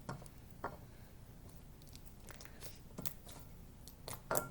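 Faint, scattered sticky clicks and squelches of homemade glue slime being mixed in a bowl, a few sharper ones near the start and end.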